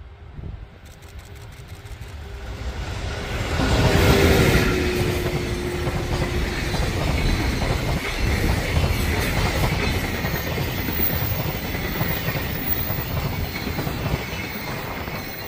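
EF81 electric locomotive hauling a container freight train past at speed. The noise builds to its loudest as the locomotive goes by about four seconds in, with a tone that drops slightly in pitch for a couple of seconds. The steady running noise of the container wagons rolling past follows and eases off near the end as the last wagon clears.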